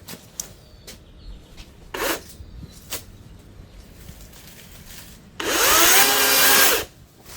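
DeWalt FlexVolt battery chainsaw running briefly, about a second and a half, cutting into a small palm trunk, its motor pitch wavering as the chain takes the load. Before it, a few light knocks and rustles.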